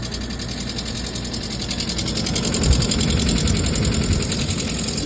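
AC air-handler blower running with a fast, even mechanical rattle, growing louder and heavier from about halfway through. The blower motor is loose in its mount, one of its mounting screws broken.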